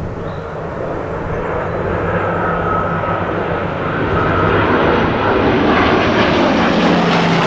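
Three WWII piston-engined fighters, a Spitfire and two Hurricanes, flying past in formation. Their engines make a steady drone that grows louder as they pass overhead.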